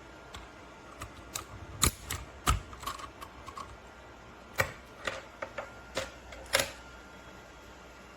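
Keys pressed one at a time on a Dierya T68SE mechanical keyboard with red linear switches: scattered, irregular clacks, a few of them louder, dying away about seven seconds in.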